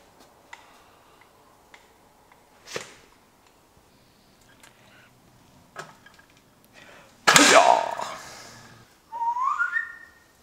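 Sheet steel being cut on a hand-lever metal shear: a few light clicks and taps, then a sharp metallic clang about seven seconds in that rings on briefly as the cut goes through. A short rising squeal follows near the end.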